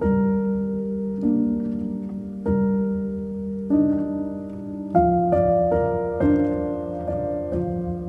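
Slow background piano music, with a new chord struck about every second and a quicker run of notes in the second half.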